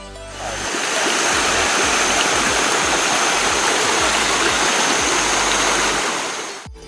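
Shallow stream of water rushing over algae-covered rock: a steady rush of running water that fades in just after the start and fades out near the end.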